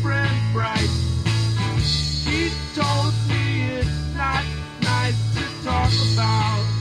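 Rock music: sustained bass notes changing every second or so, under a lead melody that slides up and down in pitch.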